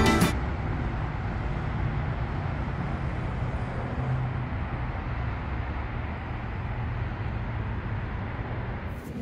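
Steady outdoor street ambience: an even low rumble of distant road traffic with a faint hiss above it.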